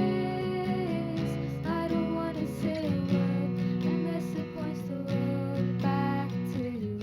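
Music: strummed acoustic guitar carrying a song's accompaniment, with chords changing every second or so.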